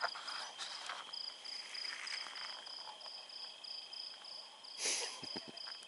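Crickets chirping, a high pulsing trill of about three chirps a second over a fainter steady insect whine. About five seconds in there is a short rustle.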